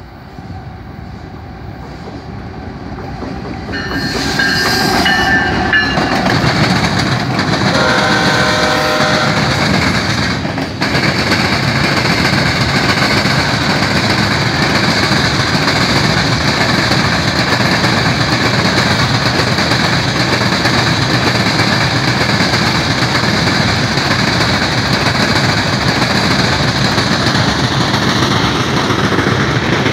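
Diesel freight train approaching and passing close by: the locomotive horn sounds about four seconds in and again, at a different pitch, about eight seconds in. After that comes the loud steady rumble and wheel clatter of the freight cars rolling past.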